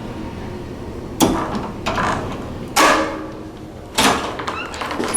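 Doors fitted with Sargent door closers and Sargent mortise locks shutting: three sharp clunks, about a second and a half apart, each with a short fading ring.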